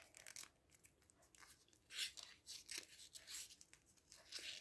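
Faint rustling and crinkling of a square of colored paper being folded by hand and pressed along its creases to make a corner bookmark, in several short rustles, the clearest about two seconds in.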